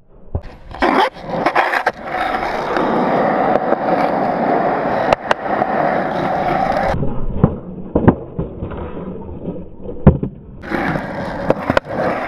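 Skateboard wheels rolling over concrete. The rumble is louder from about two seconds in to about seven, quieter after that, and louder again near the end, with several sharp knocks from the board and wheels.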